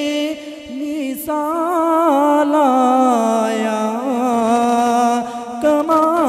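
A man's solo voice singing a naat, an Urdu devotional poem in praise of the Prophet, into a microphone. He draws out long, wavering, ornamented notes with no clear words.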